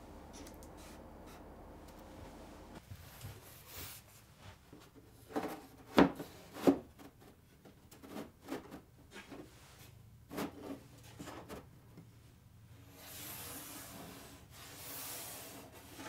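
Thin fibreboard panels being handled and fitted into a wooden box: a few sharp wooden knocks and taps around six seconds in, the loudest at six seconds, and more taps near ten seconds. Near the end comes a longer scraping and rubbing as a panel's edge slides against the wood.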